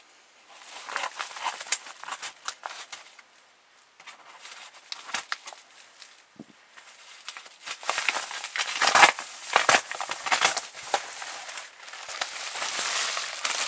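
A large mailer being cut open and its packaging handled: irregular crackling, crinkling and sharp clicks, growing busier and louder about halfway through as the contents are pulled out.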